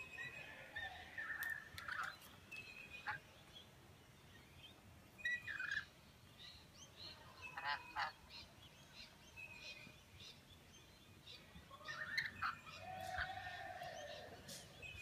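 Parrots calling: short, shrill screeches and chatter from rainbow lorikeets at a seed feeder, scattered throughout. A longer, harsher call comes about twelve seconds in.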